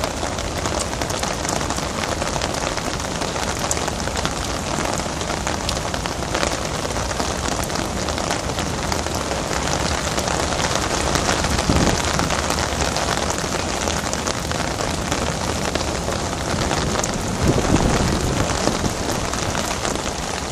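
Pouring rain: a steady, dense hiss of heavy rainfall, swelling briefly louder about twelve seconds in and again near eighteen seconds.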